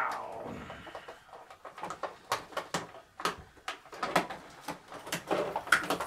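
Clear plastic clamshell toy packaging crinkling and crackling as it is handled, with irregular sharp clicks while twist ties are worked loose.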